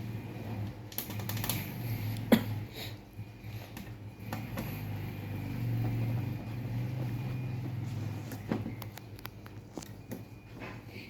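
Small clicks and knocks of things being handled, with one sharp knock a couple of seconds in and another near the end, over a steady low hum.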